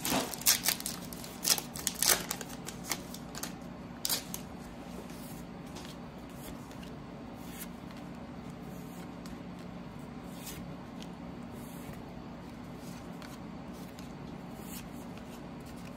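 Plastic trading-card pack wrapper crackling as it is torn open, sharp crinkles over the first four seconds, then softer occasional flicks of baseball cards being thumbed through one by one, over a steady low hum.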